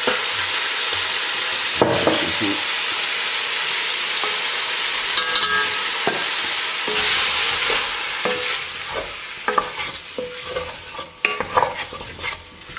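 Beef pieces and onions sizzling steadily in hot olive oil in an enamelled cast-iron casserole while flour is sprinkled over them. In the last few seconds the sizzle grows quieter, and a wooden spoon stirring the meat makes scattered knocks and scrapes against the pot.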